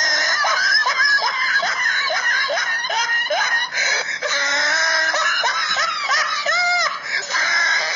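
High-pitched laughter from a comedy laugh sound effect: quick repeated rising 'ha' sounds, two or three a second, turning into longer, wavering cackles in the second half.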